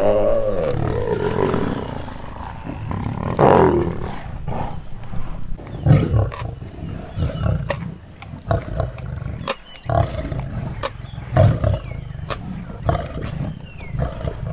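Lions snarling and growling as they feed on a Cape buffalo. There is a long snarl falling in pitch at the start and another about three and a half seconds in, then shorter low growls, with scattered sharp clicks.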